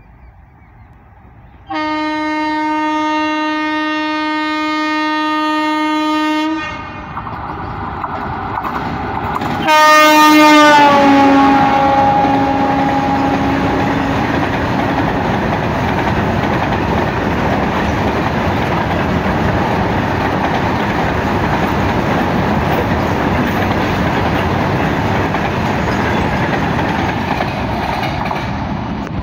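Indian Railways WAG-7 electric freight locomotive sounding its horn in one long blast about two seconds in, then a second, louder blast about ten seconds in that drops in pitch as the locomotive passes close by. After it comes the steady rumble and clatter of a long rake of covered goods wagons running past on the rails.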